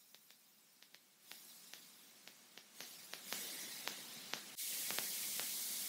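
Static-like hiss that grows louder in a few steps, with scattered faint clicks and no engine tone to be heard.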